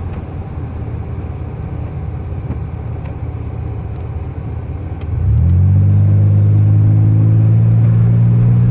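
Car driving along a hail-covered road: steady road noise, then about five seconds in a loud, steady low drone with overtones sets in.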